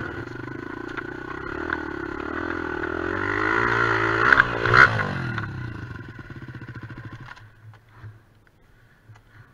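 Honda XR250's single-cylinder four-stroke engine revving hard as the bike fights for grip on a loose, wet stony slope, climbing to a peak with a couple of sharp knocks about four to five seconds in. The revs then sag into a slow chug and the engine stalls about seven seconds in as the bike goes down.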